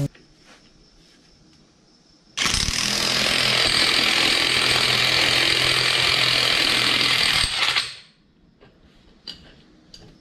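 Cordless impact wrench hammering steadily for about five seconds as it drives a hub puller's center screw to pull the crankshaft pulley off a 6.7 ISB Cummins diesel, starting about two seconds in and stopping abruptly as the pulley comes loose.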